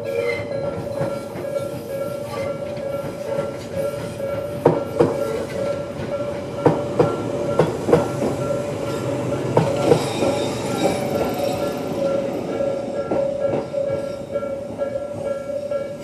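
Electronic level-crossing warning bell of the Tobu type ringing in a steady repeating tone while a Tobu 6050 series electric train runs over the crossing, its wheels clacking over the rail joints from about four seconds in until about thirteen. The bell cuts off at the very end.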